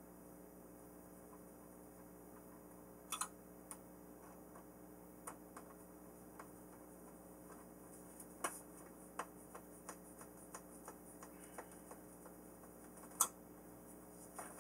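Scattered light clicks and taps, irregularly spaced, from hands handling and fitting the foam and plastic tail parts of an RC model airplane, over a faint steady hum. The loudest click comes near the end.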